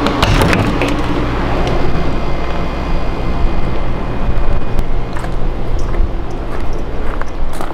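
Click and rattle of an RV screen-door latch being worked open, then a steady loud rumbling noise with a few faint ticks.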